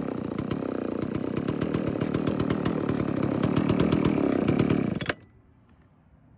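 Dolmar 133 Super two-stroke chainsaw idling with a rapid, slightly uneven firing beat, then shut off, the engine stopping abruptly about five seconds in.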